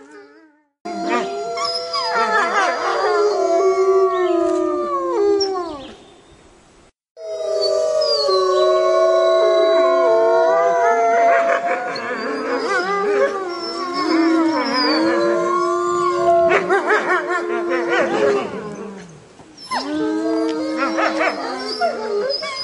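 A pack of wolves howling in chorus, several long howls overlapping and sliding up and down in pitch. The chorus starts about a second in, cuts out briefly about seven seconds in, and dips again near the end before resuming.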